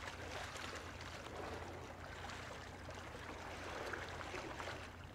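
Faint, steady seaside ambience: a soft hiss of calm sea water and breeze, with a low steady hum underneath.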